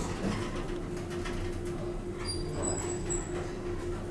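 Steady low hum with a constant mid-pitched drone from the ship's machinery and ventilation, heard at an open elevator door. A few faint, short, high-pitched beeps come between two and three seconds in.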